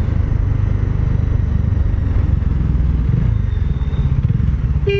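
Motorcycle engine running steadily while riding, with an even low beat and road noise. A vehicle horn sounds briefly at the very end.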